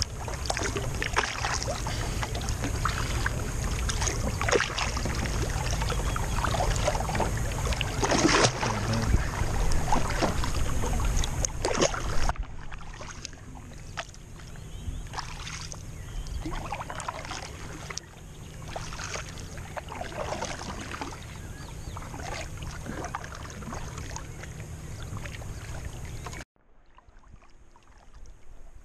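Double-bladed kayak paddles dipping and splashing in lake water, stroke after stroke, over a steady low rumble. It is quieter after about twelve seconds and much fainter near the end.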